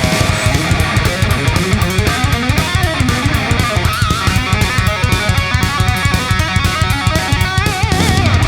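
Background rock music: electric guitar over a fast, steady drum beat.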